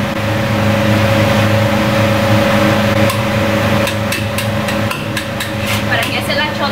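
Metal ladle and spatula clanking and scraping against a steel wok as fried rice is stir-fried, over the steady hum of the wok range. The clanks are scattered and come more often in the second half.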